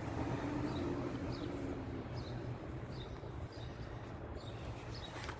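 Steady low background hum with a few faint, short high chirps: quiet outdoor ambience.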